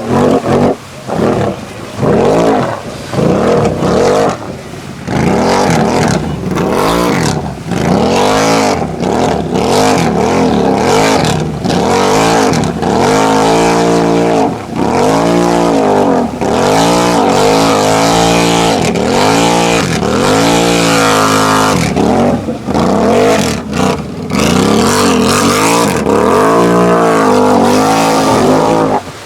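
Off-road ATV engine revved hard again and again while churning through a deep mud hole, its pitch climbing and dropping about once or twice a second, over the noise of spinning tyres and spraying mud.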